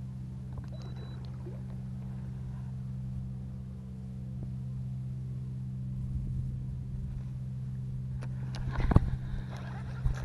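A boat's motor humming steadily, with a brief, louder rush of handling noise about nine seconds in.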